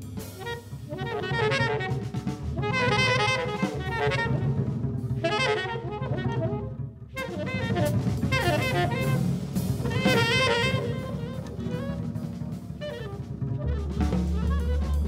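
Jazz trio playing: tenor saxophone phrases over bass and drum kit. The bass moves to louder low notes near the end.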